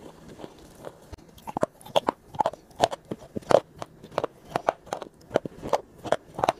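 Close-miked chewing with crisp, crunchy bites, about two or three crunches a second; faint mouth clicks at first, the crunching getting louder after about a second and a half.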